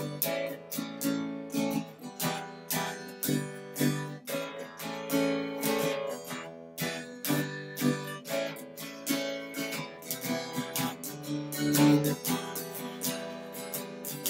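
Steel-string acoustic guitar strummed in a steady rhythm, chords ringing between the strokes, in an instrumental passage with no singing.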